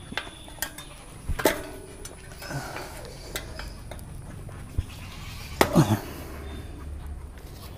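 Bicycle tyre being levered onto a spoked rim with a tyre lever: scattered clicks and metallic clinks, with a sharp one about a second and a half in and a short cluster near six seconds in.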